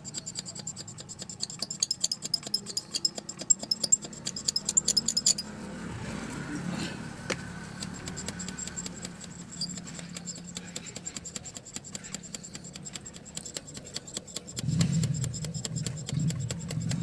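Hand primer pump on a JCB diesel fuel filter head being pressed over and over, giving a rapid run of clicks that is loudest for the first five seconds and fainter after: the fuel system being primed after a filter change. A low hum underneath gets louder near the end.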